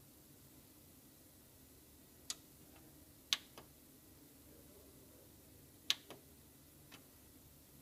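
Plastic keys on a printer's control panel clicking as the down arrow of the navigation pad is pressed: about six short sharp clicks, the two loudest each followed closely by a softer one, over a faint steady hum.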